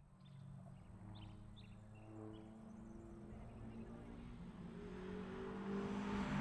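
Competing rally car approaching at speed along a tarmac stage, its engine faint at first and growing steadily louder toward the end as it nears.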